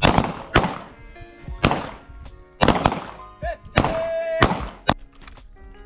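Handgun shots from several shooters firing on a line, about eight in all at uneven spacing, unhurried aimed fire in a timed string of five rounds each. Background music plays under the shots.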